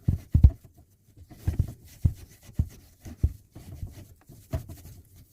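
Wire wool rubbed over the end of a 15 mm copper pipe: irregular scrubbing strokes and knocks, with leftover water in the pipe splashing about.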